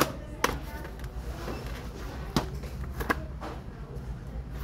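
Books and plastic DVD cases being handled in a bin, with a few sharp clicks and knocks, over a steady low hum.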